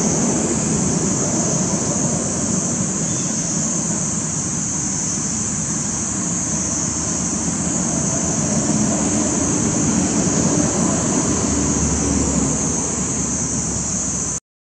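Steady outdoor background noise: a constant high-pitched hiss over a low rumble of distant traffic. The sound cuts out completely for a moment just before the end.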